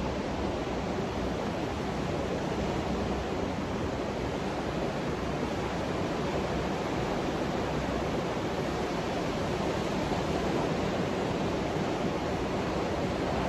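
Ocean surf breaking along a sandy beach: a steady, even wash of noise with no single wave crash standing out.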